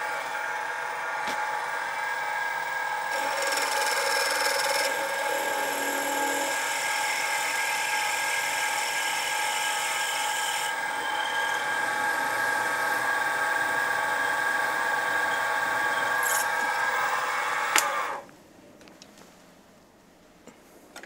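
Sieg SX2P mini mill's spindle motor running with a steady whine while a 3.9 mm twist drill bores a tapping hole into the cast pedestal. The motor switches off about three-quarters of the way in and the whine cuts off suddenly.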